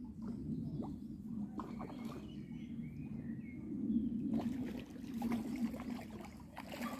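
Lakeside ambience: a steady low rush of wind and lapping water, with a bird chirping briefly about two seconds in.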